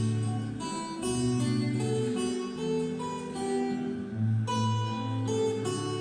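Instrumental music without singing: plucked, guitar-like notes in a melodic pattern over held bass notes.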